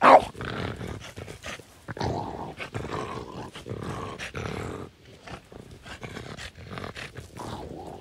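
A French bulldog barks sharply once, then growls and grunts in play for several seconds, with its paws scrabbling in sand. The growling eases off after about five seconds.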